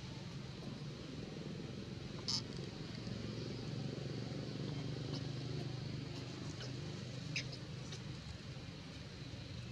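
Low steady hum of a distant motor vehicle engine, swelling slightly midway. A few brief high-pitched clicks sound over it, the loudest about two seconds in.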